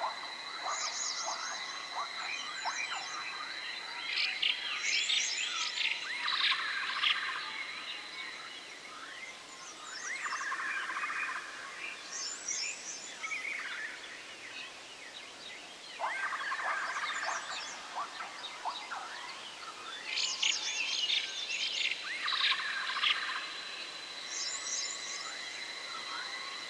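Forest ambience: clusters of high chirping calls from birds or frogs every few seconds, over a steady high-pitched whine that drops out in the middle and comes back near the end.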